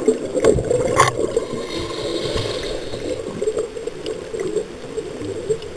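Scuba regulator exhaust bubbles gurgling, heard underwater, with a sharp click about a second in.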